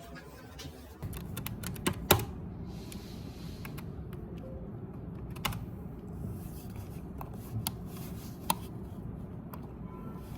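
A few scattered sharp clicks and taps over a steady low rumble that comes in about a second in.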